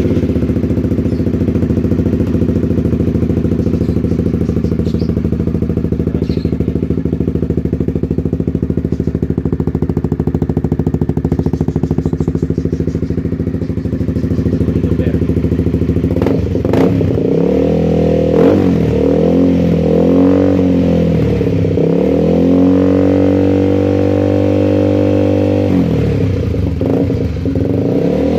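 Honda CBR150R single-cylinder four-stroke engine breathing through an aftermarket Scorpion stainless muffler, idling steadily, then revved with a series of throttle blips from a little past halfway, including one longer held rev, before dropping back to idle near the end.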